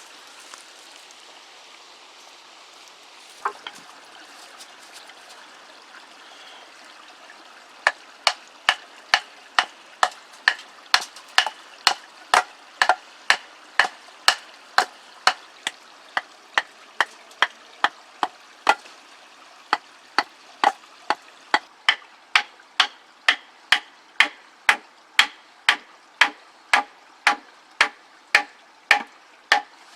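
A tool striking wood in a steady run of sharp blows, about two a second, starting about eight seconds in with a short break near the middle. A single knock comes a few seconds in.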